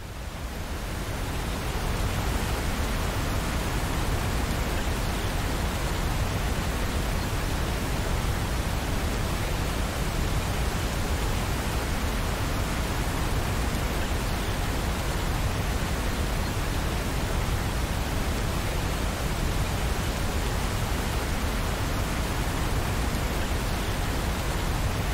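Steady rain, an even hiss without separate drops, fading in over the first two seconds.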